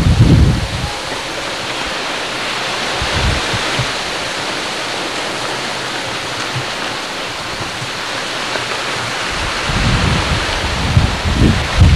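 Steady rush of strong wind and sea, with low gusts of wind buffeting the microphone about the first second and again near the end.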